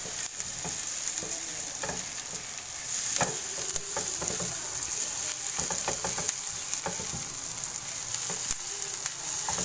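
Chopped onions sizzling as they sauté in a little oil in a frying pan, just beginning to change colour, stirred with a silicone spatula that scrapes and taps against the pan in irregular strokes.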